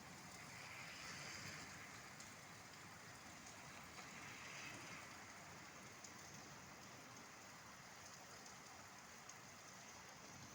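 Steady rain falling: an even hiss of drops that holds level throughout.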